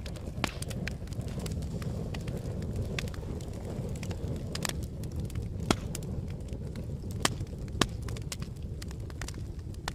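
Campfire burning, a steady low rumble with irregular crackles and pops of burning wood, a few louder snaps in the second half.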